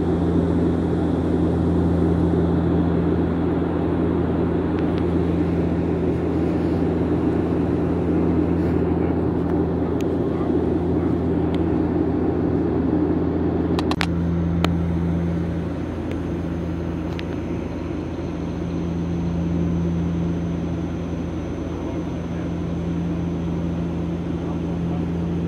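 Cabin drone of a Bombardier Dash 8 Q400 turboprop in flight: a steady low propeller hum with a second, higher tone over engine and airflow rush. About halfway through the rush eases slightly and a faint high whistle joins in.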